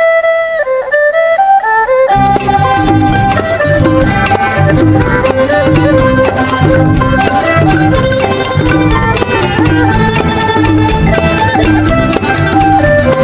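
Traditional-style instrumental music. A lone melody plays at first, and about two seconds in drums and a fuller ensemble join with a steady beat.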